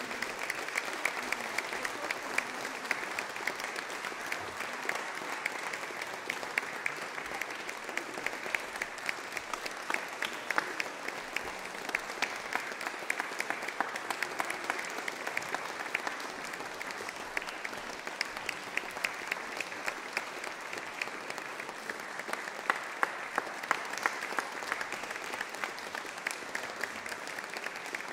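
Audience applauding steadily: many hands clapping in a dense patter, with single sharper claps standing out.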